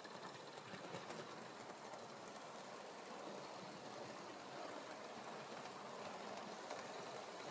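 Gauge 1 live steam model of an NSWGR C32 class locomotive running along the track: a steady hissing rush of steam with faint clicks of the running gear, growing a little louder in the first second.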